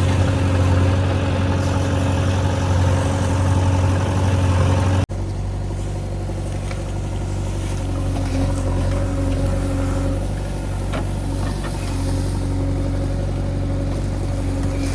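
Diesel engine of the digging and loading machinery running steadily. It cuts off abruptly about five seconds in and gives way to a slightly quieter steady engine sound.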